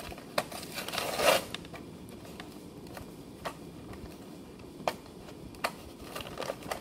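Thin plastic blister packaging being handled: scattered sharp clicks and crinkles, with a longer rustle about a second in.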